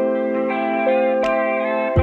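Instrumental background music: held melodic notes that change pitch, with a short percussive hit about a second and a quarter in.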